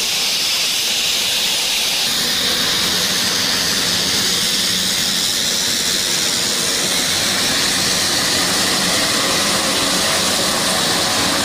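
Twin Garrett TPE331 turboprop engines of a Hindustan-228 (licence-built Dornier 228) running as the aircraft taxis past, giving a loud, steady high-pitched hiss.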